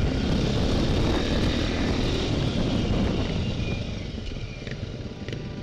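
Off-road trail motorcycle riding along a gravel track, its engine and rushing wind on the camera microphone making a dense, steady noise that eases off a little near the end.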